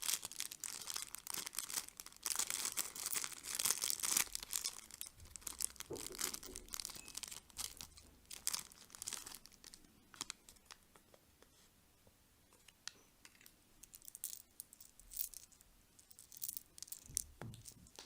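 Plastic candy packaging being torn open and crinkled by hand, dense crackling for the first few seconds, then scattered crinkles and clicks with a short lull in the second half.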